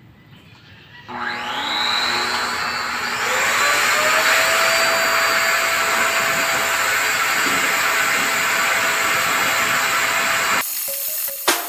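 Pet grooming force dryer switched on about a second in: its motor whine rises as it spins up, then it blows steadily with a loud rush of air. It cuts off abruptly near the end.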